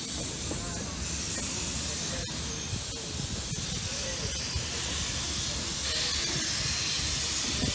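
Steam locomotive hissing steadily as its train of wooden passenger coaches rolls past with a low rumble. The hiss grows louder about six seconds in.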